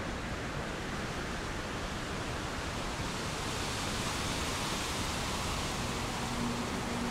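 Steady rain, an even wash of hiss with no distinct drops or other events. Faint sustained musical tones creep back in near the end.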